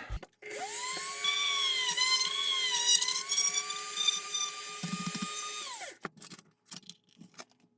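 Small high-speed power drill whining as it bores a hole through a plastic model kit part, spinning up about half a second in, wavering slightly in pitch under load and winding down about six seconds in. A few light clicks follow near the end.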